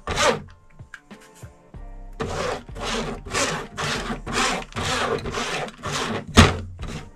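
Paintbrush scrubbing melted beeswax onto a hive frame's foundation sheet, in brisk back-and-forth strokes about two a second that start about two seconds in. A sharp knock near the end is the loudest sound.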